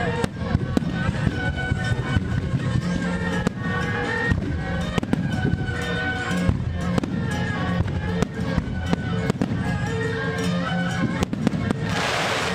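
Aerial fireworks going off in an irregular string of sharp bangs over steady music.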